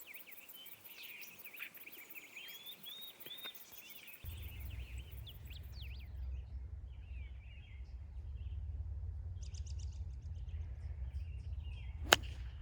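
Birds singing, then a steady low rumble from about four seconds in. Near the end comes one sharp crack, a hickory-shafted club striking a gutty golf ball.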